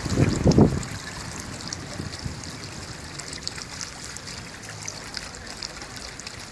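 Public drinking fountain's water jet splashing and trickling into its metal bowl, a steady watery hiss with small spatters. A few low bumps of wind on the microphone in the first second.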